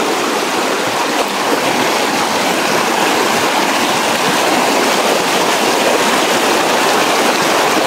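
Fast river current rushing, a loud, steady noise of strongly flowing water.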